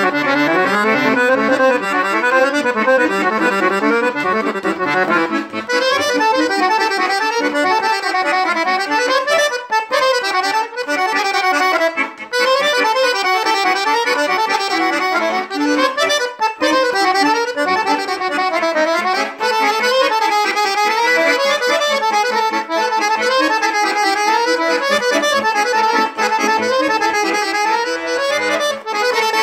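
Chromatic button accordion playing a Serbian kolo folk dance tune solo, with quick runs of notes moving up and down.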